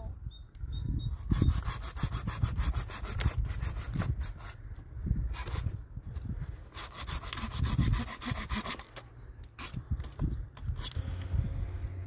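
Dry branches and twigs being snapped and broken by hand, the wood cracking and rubbing in quick runs of crackles, over a low rumble.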